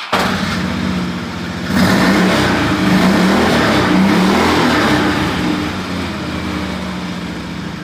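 Motorcycle engine revving: the engine note jumps up about two seconds in, rises and falls in pitch a few times, then settles and fades away near the end.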